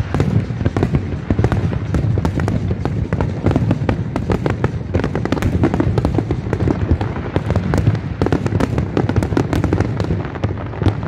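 Aerial fireworks display: shells bursting overhead in a rapid, continuous barrage of bangs and crackles, over a steady low rumble.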